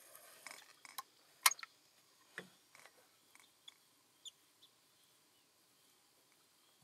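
A spinning reel and rod being handled in a wooden canoe: scattered sharp clicks and light knocks, the sharpest about a second and a half in. The clicks thin out and stop after about five seconds.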